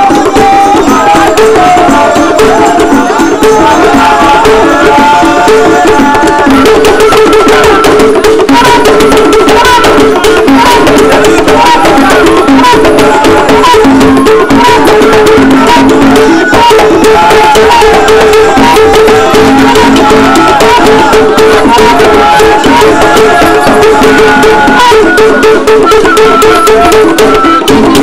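Traditional Esan dance music: drums and rattles playing a steady, continuous rhythm, with a wavering melody line over it.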